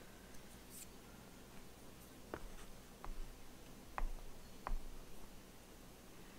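Faint, light taps of a dotting tool's tip on a painted wooden board as dots of paint are dabbed on one at a time: four single taps starting about two seconds in, roughly one every half second to a second.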